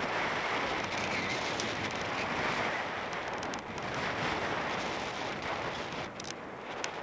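Strong wind buffeting the camera's microphone: a rushing noise that swells and eases in gusts, with a few light clicks near the end.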